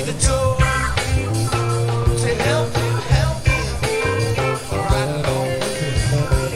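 A rock band playing live: electric guitar, bass and drum kit in a steady groove.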